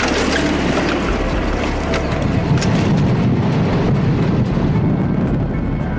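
Military supply truck on the move: engine running under a steady rumble, with continual rattles and knocks.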